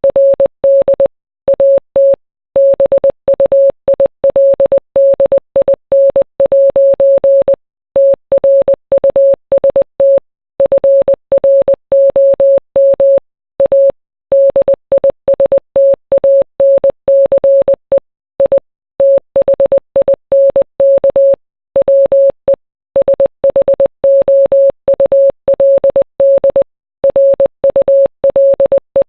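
Morse code: a single steady mid-pitched beep keyed on and off in short and long pulses (dots and dashes), with longer silent gaps between letters and words.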